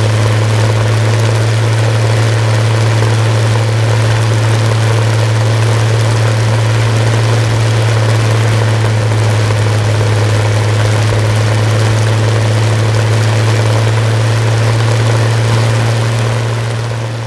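Rolls-Royce Griffon 58 36.7-litre V12 aero engine running at a steady speed with its propeller turning, a constant low drone that holds its pitch throughout. The sound fades out near the end.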